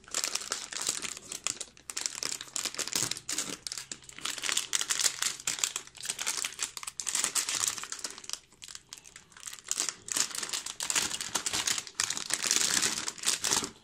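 Thin plastic packaging bags crinkling in repeated bursts as hands open and pull them apart, with a couple of brief quieter pauses partway through.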